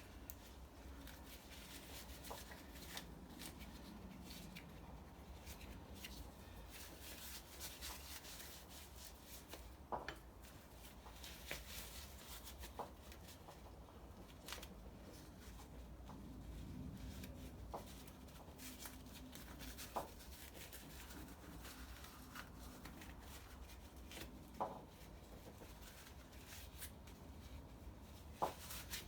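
Faint rubbing and rustling of things being handled, with about half a dozen light, sharp knocks scattered through, over a low steady hum.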